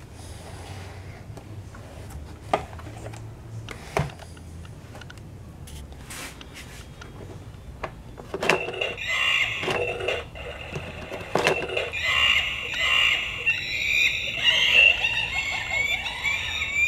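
Plastic clicks and knocks from handling an Imaginext Gorilla Mountain toy playset. About halfway through, a press on the toy sets off its electronic sound effects: shrill, wavering, pitched calls from a small speaker.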